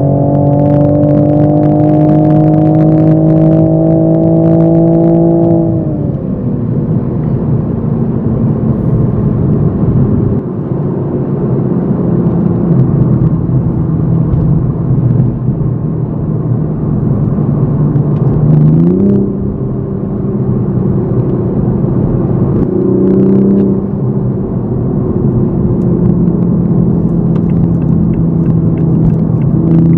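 Toyota GR Supra MK5's engine heard from inside the cabin in sport mode. It pulls up in revs for the first five seconds, then drops sharply at a gearchange about six seconds in and settles into a steady cruising note with road noise underneath. The revs jump quickly again about nineteen seconds in, with a smaller step a few seconds later.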